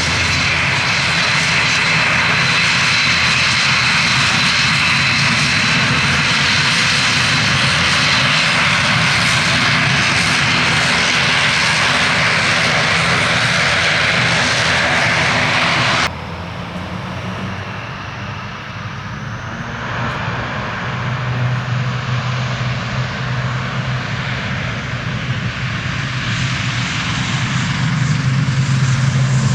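ATR 72-600 turboprop engines and propellers running with a steady, loud, hissing whine. About halfway it drops abruptly and turns duller, then grows steadily louder with a low propeller hum.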